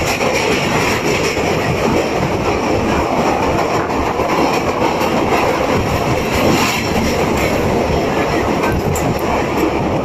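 Janmabhoomi Express passenger train running across a steel truss rail bridge, heard from on board: a steady, loud rumble and rattle of wheels on the rails.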